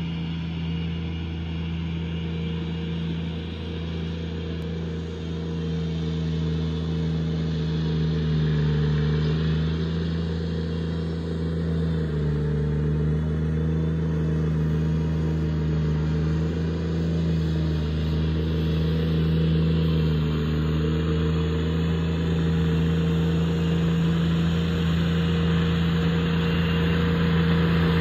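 Ventrac 4500Y compact tractor's turbocharged diesel engine running steadily, its note wavering a little in pitch and growing gradually louder as the machine comes closer across the slope.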